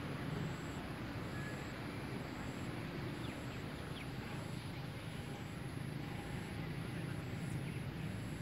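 Steady low background rumble, with a few faint short chirps about three to four seconds in.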